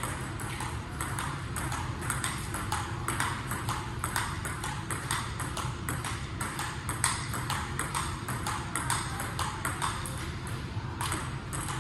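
Table tennis rally: a celluloid-type ball clicking off paddles and the table top in a quick, even run of sharp ticks.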